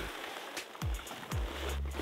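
Background music with deep, falling bass hits about every half second, over a faint hiss of water and slush sloshing as a sawn block of ice is pushed down under the ice sheet.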